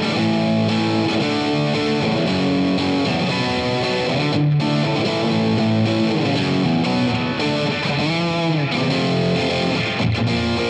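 Squier Affinity Telecaster electric guitar played through an amp: a run of held notes and chords with a short break about halfway, and a note bent up and back down with vibrato near the end.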